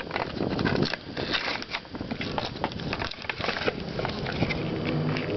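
Dense crinkling and crackling of a foil booster-pack wrapper and trading cards being handled close to the microphone.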